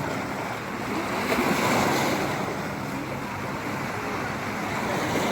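Surf washing and surging against shoreline rocks, a steady rushing that swells and ebbs.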